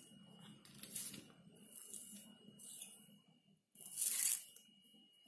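Rustling and handling noises in a few short bursts, the loudest about four seconds in, as craft materials on newspaper are moved and a plastic glue bottle is picked up. A faint steady high whine runs underneath.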